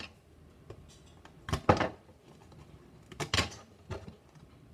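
Stiff cardboard punchboard from the Catan board game being flexed and pieces pressed out of it: two short clusters of cracking snaps about a second and a half apart.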